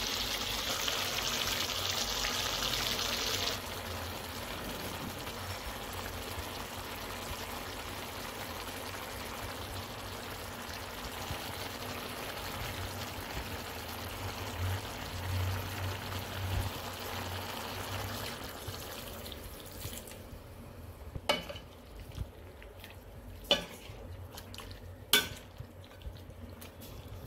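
Chicken pieces and spices sizzling in hot oil in a stainless steel pan, with a steady hiss. In the last few seconds the sizzle is quieter and a spatula knocks sharply against the pan's metal sides three times while the curry is stirred.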